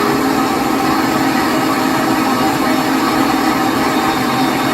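Countertop blender running steadily, pureeing a homemade dip of vegetables and liquid.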